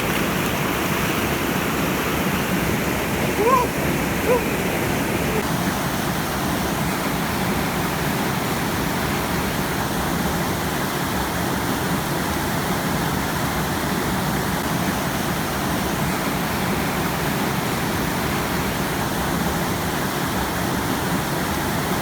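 Mountain stream waterfall rushing steadily, with two brief cries about three and a half and four and a half seconds in.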